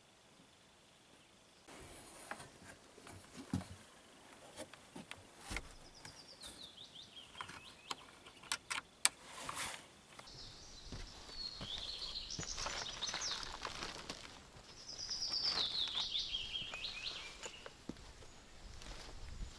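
Songbirds singing outdoors, several descending runs of rapid high notes, each about two seconds long, over a low hiss. Scattered sharp clicks and knocks sound in the first half.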